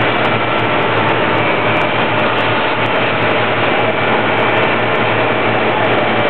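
Concrete paver's diesel engine running steadily: a loud, even mechanical drone.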